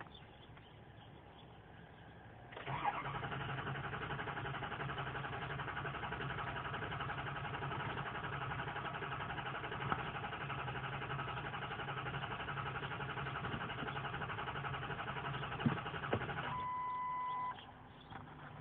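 Starter cranking a 2003 Ford 6.0 Power Stroke V8 diesel steadily for about fourteen seconds, then stopping abruptly without the engine firing: a crank-no-start. A short steady beep follows.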